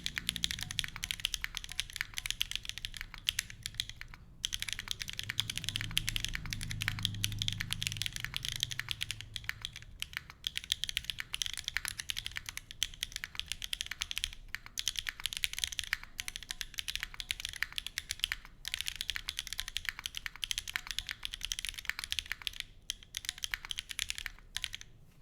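Fast, continuous typing on a wilba.tech Salvation mechanical keyboard with stock KTT Strawberry v2 linear switches on an FR4 plate and GMK Striker keycaps. There is a rapid patter of keystrokes with a few brief pauses, and it thins out to scattered key presses near the end.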